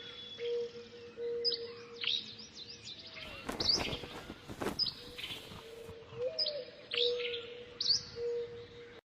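Birds chirping in a chorus of short, sharp calls over a low, steady, wavering tone, with about a second and a half of rushing noise in the middle. The sound cuts off abruptly near the end.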